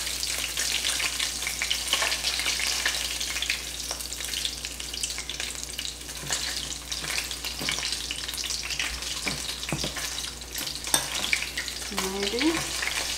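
Battered blue runner fillets frying in hot oil in a pan: a steady crackling sizzle with scattered small pops.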